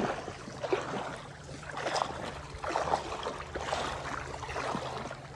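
Water splashing and lapping at a sandy river shore, uneven, with scattered soft knocks and splashes.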